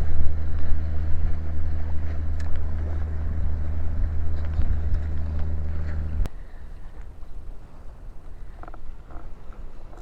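Low, steady engine drone that cuts off abruptly with a click about six seconds in, leaving only a faint background hiss.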